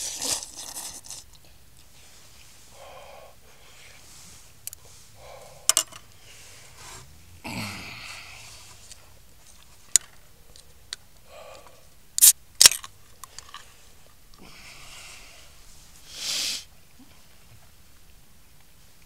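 Close-miked eating sounds: scattered sharp clicks and knocks, with a few short breathy hisses, one at the start, one about eight seconds in and one near the end.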